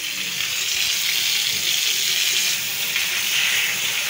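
Water running steadily from the brass tap of a tiled wall fountain and splashing into its marble basin, a steady hiss that grows louder about two and a half seconds in. Near the end a hand is held in the stream.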